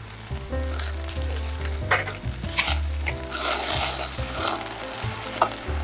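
A thick slab of beef sizzling over a small charcoal grill, with fat crackling and popping now and then as it flares on the coals. The sizzle swells a little past halfway through.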